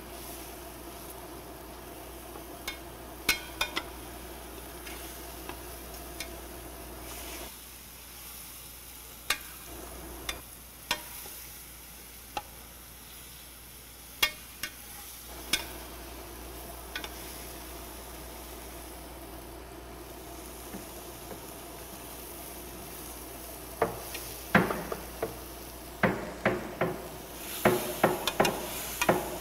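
Food sizzling in a pan on a gas stove while a utensil stirs it, clinking and scraping against the pan; the strokes come quick and close together in the last few seconds.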